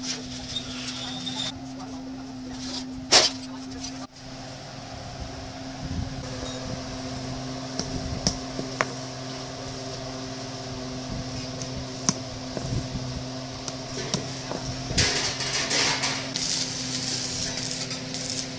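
Steel-rod frame work with a steady hum underneath and occasional sharp clinks of metal. In the last few seconds comes the crackle of electric arc welding as rods of the frame are welded together.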